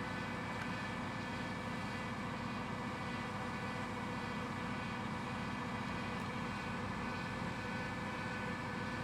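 Steady, even mechanical hum made of several held tones, with no knocks or other separate events.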